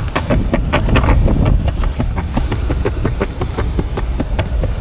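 Skateboard rolling fast over a rough concrete sidewalk: a steady low rumble from the wheels with frequent irregular clacks.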